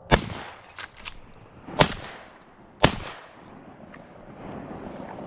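Shotgun fired three times: one shot just after the start, a second about 1.7 seconds later, and a third about a second after that, each with a short echoing tail.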